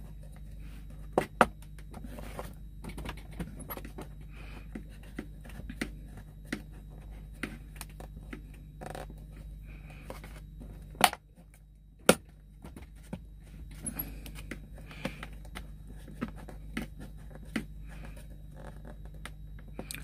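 Scattered clicks, scrapes and knocks of a plastic USB charger socket being pushed and twisted by hand into a tight, hand-trimmed hole in a plastic dashboard panel, with two sharper knocks about eleven and twelve seconds in. A steady low hum runs underneath.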